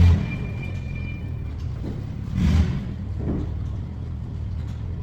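Low, steady rumble of a vehicle engine running, swelling briefly louder about halfway through.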